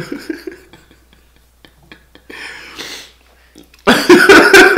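Soft mouth clicks and a breathy hiss, then near the end a loud outburst from a person's voice, broken into quick pulses, like laughing or coughing.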